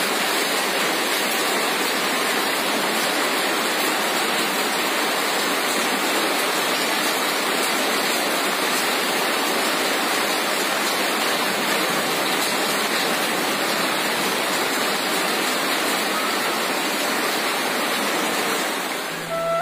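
Steady, even rushing of water, like a heavy downpour or fast-flowing water, with no thunderclaps; it breaks off right at the end as flute music comes in.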